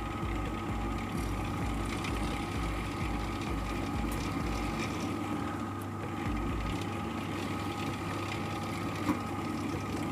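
Steady hum of a running motor, with a low throb pulsing about twice a second that fades out about halfway through.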